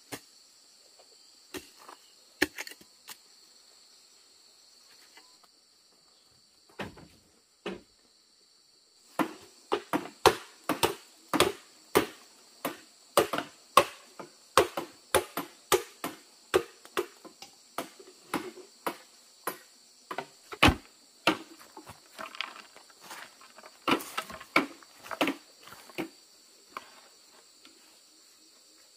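Steady chirring of crickets, with a few scattered knocks. From about nine seconds in comes a long run of sharp chopping or hammering blows on wood or bamboo, roughly two a second, which trails off near the end.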